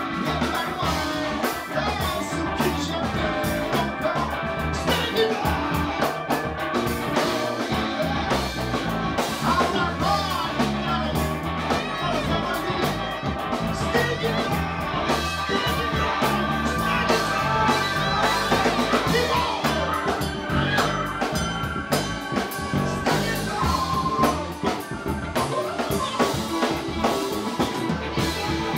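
Live band playing with a drum kit, electric bass, electric guitars and keyboard, and a man singing improvised vocals into a microphone.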